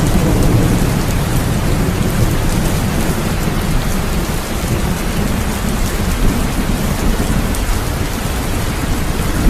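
Steady rain, with a deep rumble underneath that is strongest in the first couple of seconds.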